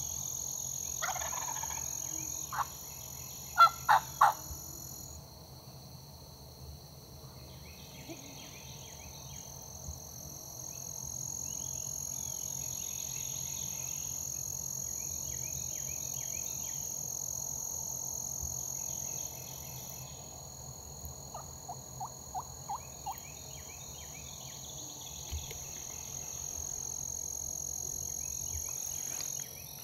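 Osceola wild turkey gobbler gobbling from its roost, with short series of hen yelps, about three notes a second, the loudest around four seconds in and again past twenty seconds in. A steady high insect chorus runs beneath.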